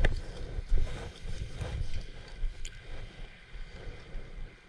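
Wind buffeting the microphone over a flowing creek, with a few sharp clicks and knocks of gear being handled.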